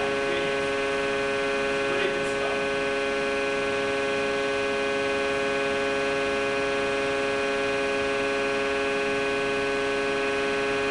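Steady whine of a large hydraulic compression testing machine's pump, one held pitch with many overtones and no change in level. A faint tap comes about two seconds in.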